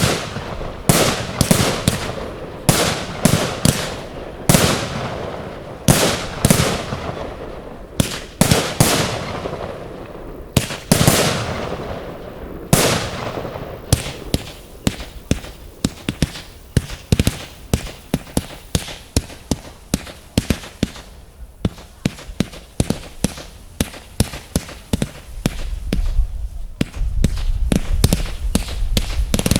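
Fireworks display: a run of loud, sharp shell bursts, many trailing off in crackle. About halfway through they turn into a fast, dense string of smaller bangs, and a low rumble builds near the end.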